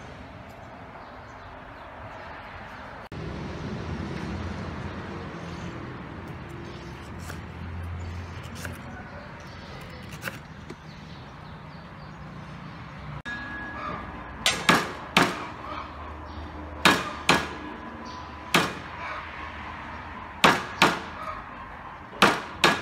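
A cleaver strikes down hard on garlic cloves on a wooden chopping board, about nine sharp blows, mostly in pairs, each with a short metallic ring from the blade: the cloves being crushed under the flat of the cleaver. Before the blows begin, about halfway through, only a steady background hiss.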